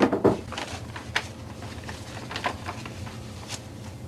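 Scattered light clicks and knocks of office things being handled, with a few soft rustles, over a low steady room hum.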